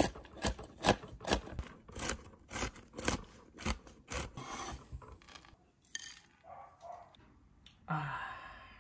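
Large kitchen knife chopping walnuts and peanuts on a wooden cutting board, about two to three chops a second, for the first four seconds. After that come fewer, softer knocks and a scraping sound near the end.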